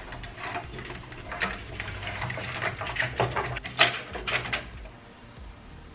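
Hands handling PC components: a run of light, irregular clicks and scratchy rustles, with a faint low hum underneath.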